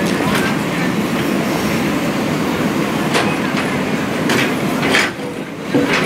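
JCB 3DX backhoe loader's diesel engine running steadily under load as the backhoe digs into rubble, with several short clanks of the bucket and stones scattered through it.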